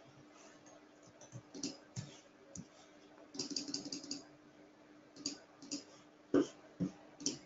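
Computer mouse and keyboard clicking at a desk: scattered single clicks, a quick run of clicks about halfway through, and the loudest click near the end, over a faint steady hum.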